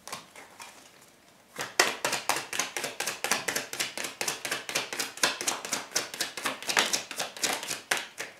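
A deck of tarot cards being shuffled by hand: a rapid, even run of card flicks and taps, about five or six a second, starting a little under two seconds in.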